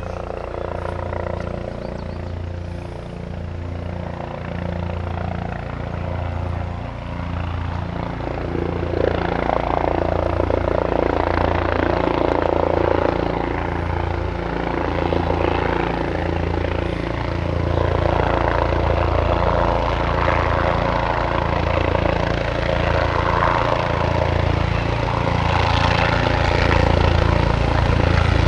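Sheriff's helicopter in flight, its rotor beating steadily, growing louder about a third of the way in.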